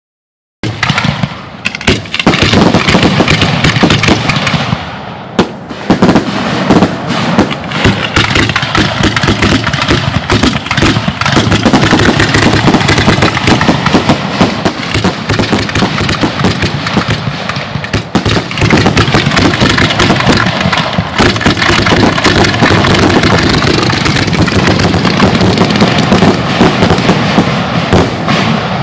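Fireworks finale barrage: aerial shells launching and bursting in rapid, nearly continuous succession, a dense stream of booms and crackling. There are short lulls about five seconds in and again around eighteen seconds.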